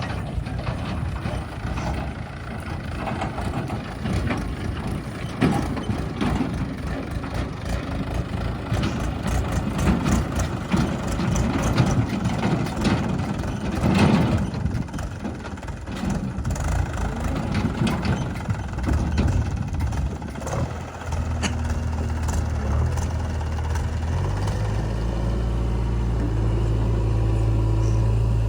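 Heavy machinery engine running, with frequent knocks and clanks of work. In the last several seconds it settles into a steady low drone.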